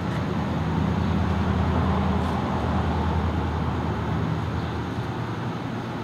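Steady low mechanical hum, a drone of several low pitches held throughout, slightly louder between about one and four seconds in.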